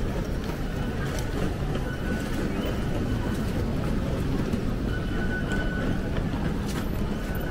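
Busy underground railway station concourse ambience: a steady low rumble with the bustle of a walking crowd, and a short high electronic tone about five seconds in.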